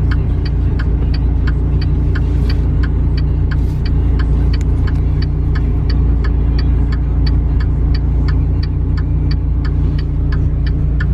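2014 Dodge Viper GTS's 8.4-litre V10 idling steadily at operating temperature, with a regular light ticking of about three ticks a second over the engine.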